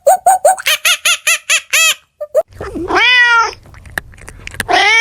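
A small dog yapping quickly, about six yaps a second, for about two seconds. Then a cat gives one long meow, and a second meow starts near the end.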